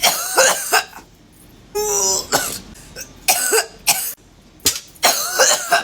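A person coughing hard after a large hit from a cannabis vape pen, in about six separate fits with short gaps, some with a strained voiced rasp, mixed with throat clearing.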